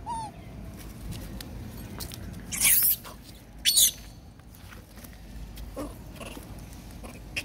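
Young long-tailed macaques calling: a short rising-and-falling coo just after the start, then two loud, harsh, shrill cries about a second apart near the middle.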